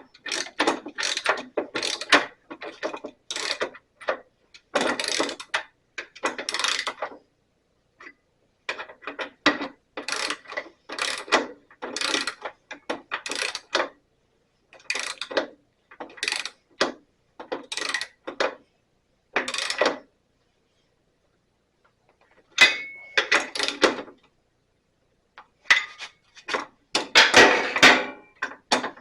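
Ratchet wrench clicking in short runs of quick strokes as it tightens nuts down onto crimped locking nuts, with brief pauses between runs; the loudest run comes near the end.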